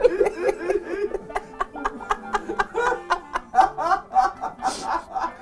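Two men laughing hard, unable to stop, in quick repeated bursts of laughter.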